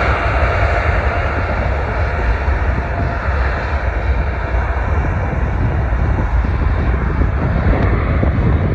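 Boeing 787 jet engines at takeoff thrust during the takeoff roll: a loud, steady roar with a heavy deep rumble. A thin whine rises in pitch and fades out in the first few seconds.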